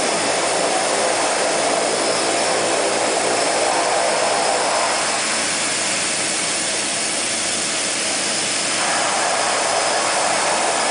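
Seaplane's propeller engine running steadily, heard from inside the cabin as the plane moves across the water.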